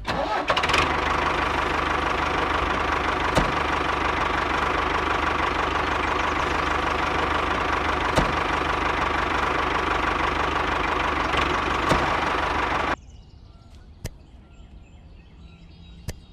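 Motor of a handmade miniature tractor running steadily, an even engine-like noise that cuts off abruptly about thirteen seconds in. A few faint clicks follow in the quieter stretch.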